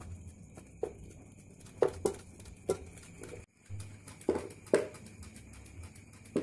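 Irregular knocks and clatters of an aluminium cooking pot being handled as cooked rice is scooped out of it, about six sharp clanks with a short ring.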